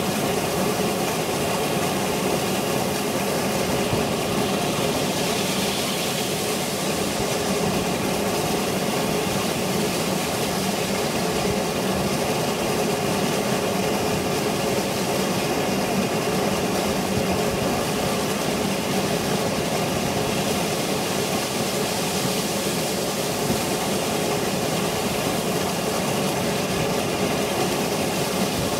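Steam locomotive 99 582, a Saxon IV K narrow-gauge tank engine, on the move, heard from a microphone mounted on the locomotive itself: a steady, even running noise with no separate exhaust beats standing out.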